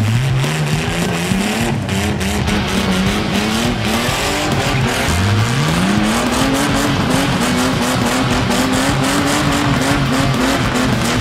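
Small old Toyota's engine revved hard and held at high revs during a burnout, with its spinning rear tyres screeching and smoking on the asphalt. The revs climb sharply at the start, dip about four seconds in, then climb again and stay high.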